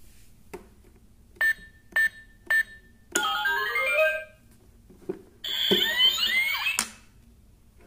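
Keypad of a Doraemon electronic coin bank beeping three times, evenly spaced, as buttons are pressed. Then its speaker plays a short stepped electronic jingle. After a pause a longer burst of electronic sound follows, with sharp clicks as the front knob is turned.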